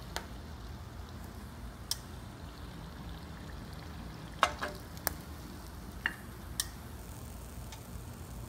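Olive oil sizzling faintly and steadily in a skillet as fried sand fleas are lifted out, with a handful of sharp clicks from metal tongs.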